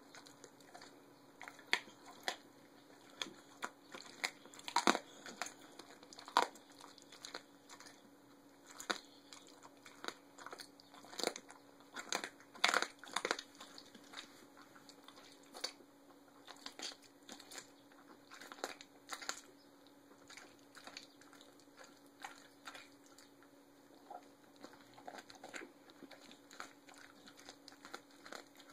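Dog chewing and crunching through raw rabbit and chicken leg quarters, bones cracking in irregular crunches, loudest in two clusters around a fifth and two fifths of the way in. A plastic sheet under the food crinkles now and then.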